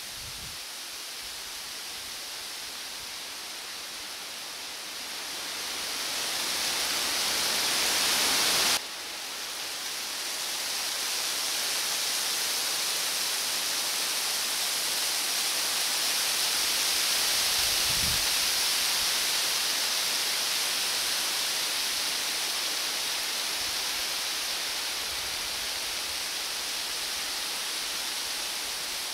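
A steady hiss with no tone in it, strongest in the high range. It swells over a few seconds and drops back abruptly about nine seconds in.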